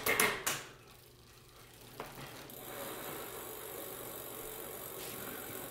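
Bicycle drivetrain with a single chainring and 8-speed cassette, turned by hand: a few knocks as the crank is grabbed, then from about two seconds in a steady whirr of the chain running over the chainring, cassette and derailleur pulleys.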